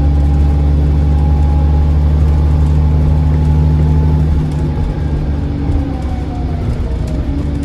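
Diesel bus engine pulling hard with a thin turbo whistle over it; about four and a half seconds in the engine eases off, and the whistle falls slowly in pitch as the turbo spools down.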